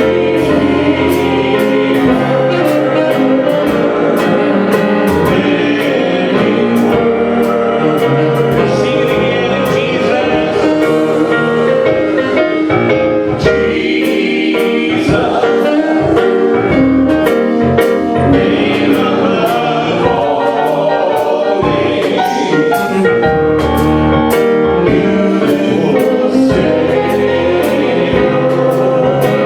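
Live gospel worship music: a band with drums and regularly struck cymbals playing under sung vocals from a choir or singers.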